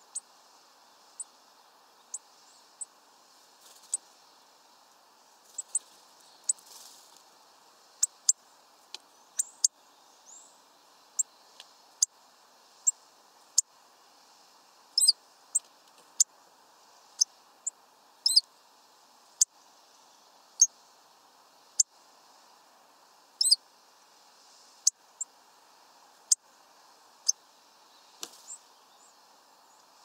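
Hawfinches calling: short, sharp, high-pitched 'tic' notes, single or in quick pairs, repeated irregularly about once a second over a faint steady hiss.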